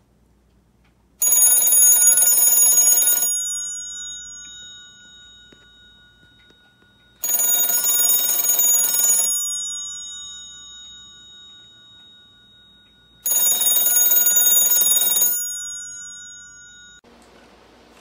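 Rotary desk telephone's bell ringing for an incoming call: three rings of about two seconds each, starting about every six seconds, each jangle leaving the bell gongs sounding on and fading before the next.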